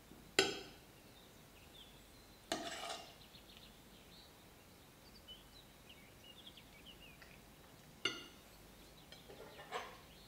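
A few sharp clinks of metal utensils on kitchenware. There is one strike about half a second in, one at two and a half seconds and one at eight seconds, then a quick run of lighter clinks near the end.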